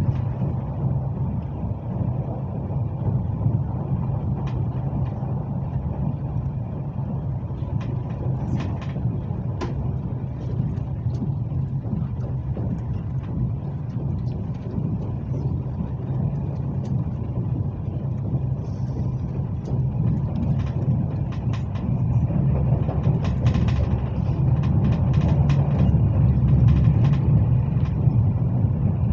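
Cabin noise of a Hyundai Rotem HRCS2 electric train travelling at speed: a steady low rumble from the running gear on the track, with a faint steady high tone and scattered light clicks and rattles. It grows slightly louder near the end.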